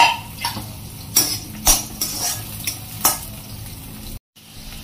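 Sliced onions sizzling in hot oil in a kadhai, with a metal slotted spatula scraping and clinking against the pan as they are stirred, about six strokes in the first three seconds. The sound drops out briefly near the end.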